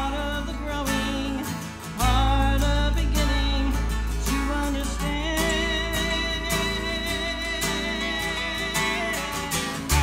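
Live acoustic band: a man singing over a strummed twelve-string acoustic guitar, a second guitar and bass guitar. The bass comes in strongly about two seconds in, and the voice holds one long note through the second half.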